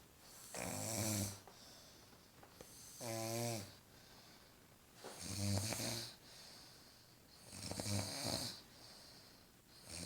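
A woman snoring in her sleep: four snores about two and a half seconds apart, one breath after another. The second snore carries a wavering, pitched tone.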